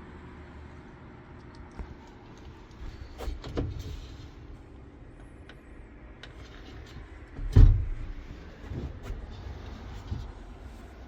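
A few knocks and thumps over a low steady rumble, the loudest about seven and a half seconds in.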